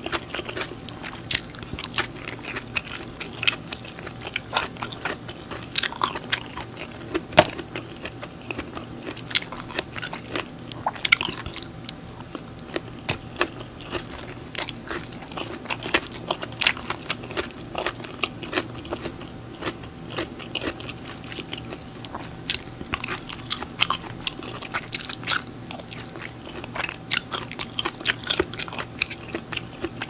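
Close-up eating: a person chewing and biting food, with many sharp mouth clicks throughout and a few louder ones.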